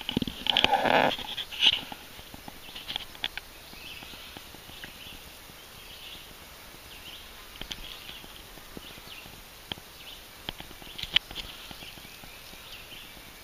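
Loud rustling and knocking for the first two seconds as the camera is shifted inside a hunting blind. After that come faint high chirping bird calls and a few sharp soft clicks.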